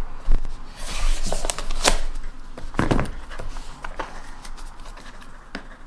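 Plastic shrink-wrap film being slit with a knife and torn off a small cardboard box by hand, with irregular crinkling and crackling and a few sharp ticks.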